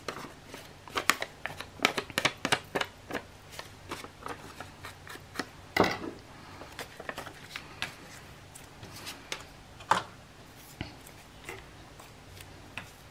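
Paper crackling and rustling as it is handled and torn in small bits at the edges: quick, dense crackles for the first half, then sparser ones, with a sharper snap about six seconds in and another near ten seconds.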